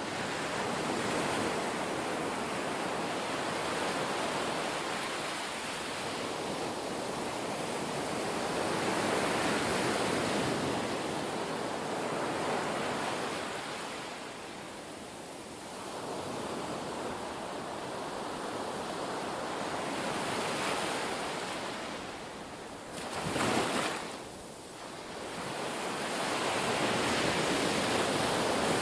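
Ocean surf: waves washing in and drawing back in slow swells, with one sharper, louder wave about three quarters of the way through.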